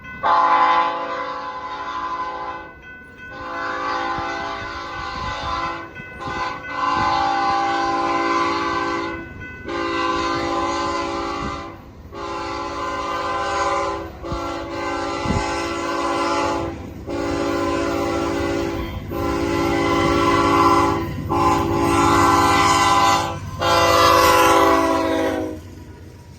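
Horn of CP 9731, a GE AC4400CW diesel-electric locomotive, sounding a chord of several tones in a long series of loud blasts with brief breaks between them; the horn stops near the end. The low rumble of the approaching train grows beneath the horn in the second half.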